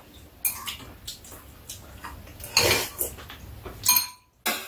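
Metal chopsticks and spoons clinking and scraping against bowls on a metal tray while eating, in scattered light taps, with a louder clatter about halfway through and a short ringing clink near the end.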